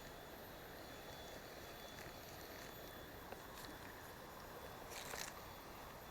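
Faint steady rushing of a small stream, with a short sharp swish about five seconds in.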